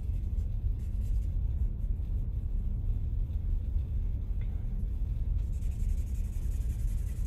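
Fingers rubbing and blending charcoal on drawing paper: a faint scratchy rubbing that grows plainly louder about five seconds in. Under it runs a steady low rumble.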